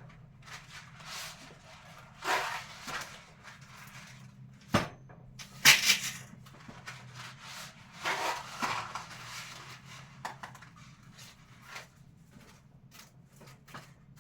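Food packets and boxes being handled and moved about in a kitchen cabinet: irregular rustling and crinkling with a few knocks as items are set down.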